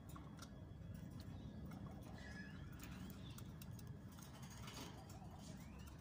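Faint chirps of caged budgerigars, a few short rising calls, with scattered light clicks over a low steady rumble.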